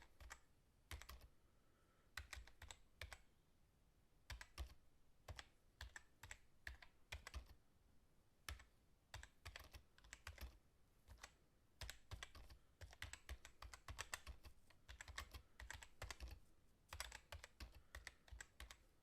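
Computer keyboard being typed on fast, quietly: rapid runs of key clicks broken by short pauses of about half a second.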